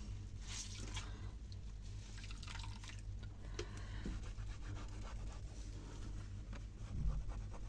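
Faint water and cloth sounds: a cleaning cloth is dipped in hot detergent water, then wiped over a matte kitchen cabinet door. A low steady hum runs underneath.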